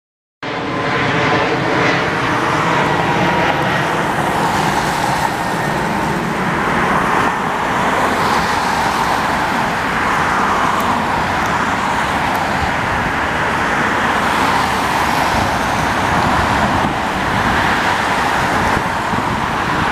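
Road traffic on a multi-lane highway, cars and vans passing close by in a steady rush of tyre and engine noise. A faint steady droning tone sits under it for the first few seconds.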